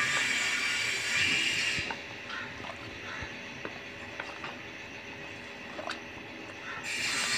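Paint being stirred with a flat stick in a metal paint tin, with scattered small clicks and knocks of the stick against the can. A steady hiss covers it for the first couple of seconds and again near the end.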